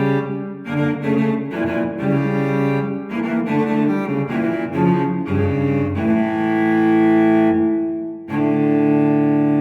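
Music: a slow, low-pitched melody of sustained notes, with a long held note near the end, a brief dip, then another held note.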